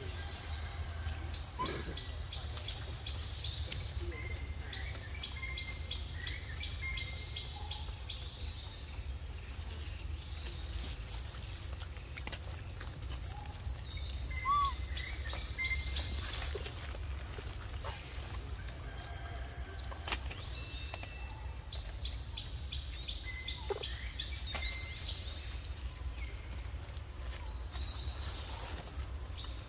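Outdoor ambience: a steady high-pitched insect drone with scattered short bird chirps, faint clicks and a low rumble.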